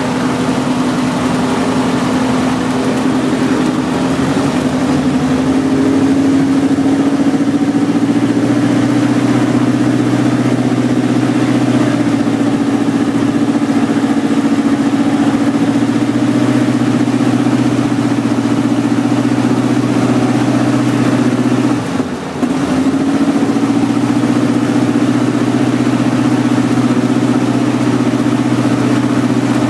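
Piper PA-18 Super Cub's air-cooled flat-four engine during the pre-takeoff run-up, heard from inside the cabin. It runs steadily, its speed rising a little in the first few seconds, then holds, with one brief sag in engine speed about 22 seconds in before it picks back up.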